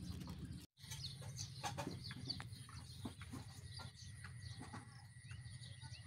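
Outdoor nature ambience of scattered short bird chirps with light clicks and rustles, over a low steady rumble. The sound drops out completely for a moment under a second in, and a thin steady high tone comes in about two seconds in.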